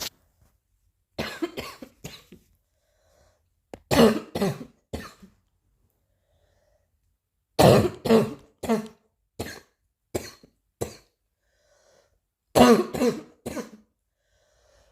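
Four fits of coughing, each a quick run of about three to seven coughs, with a pause of a couple of seconds between fits.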